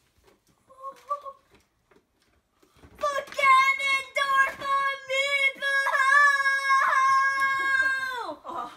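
A child's long, high-pitched squeal of excitement over a birthday present, starting about three seconds in and held for about five seconds before dropping away, after a short squeal about a second in.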